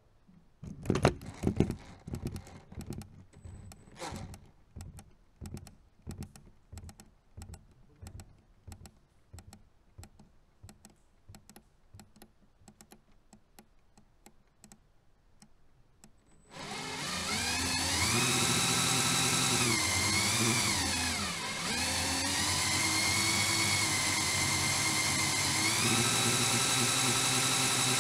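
Scattered plastic clicks and knocks, a few louder ones in the first seconds, as the vehicle's depth meter is detached. About two-thirds of the way in, the rappel mechanism's twin LEGO XL motors and gear train start suddenly and run with a steady whine, the pitch dipping and rising a few times.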